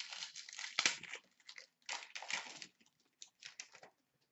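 Hockey trading cards and their wrapper handled by hand: irregular rustling and crinkling in three bursts, with the loudest crackle about a second in.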